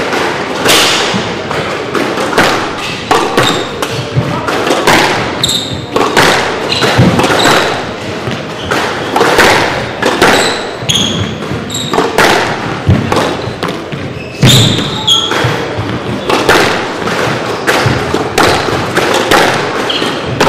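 Squash rally: the ball cracking off rackets and the walls in irregular sharp thuds, roughly once a second, echoing in the court. Short high squeaks of court shoes on the wooden floor come in between.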